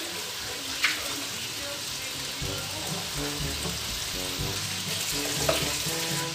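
String beans and pork frying in soy sauce in a wok, a steady sizzle with two sharp pops, about a second in and again near the end.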